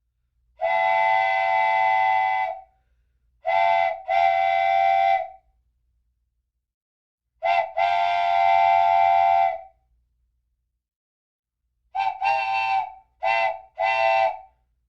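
A horn sounding in separate steady-pitched blasts with silence between: a long blast of about two seconds, two short-then-long pairs, then three short toots near the end.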